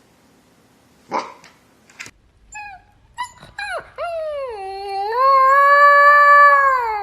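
Siberian husky giving one rough bark about a second in, then a few short whining yelps, then a long howl from about four seconds on. The howl dips in pitch, rises and holds, and is the loudest part.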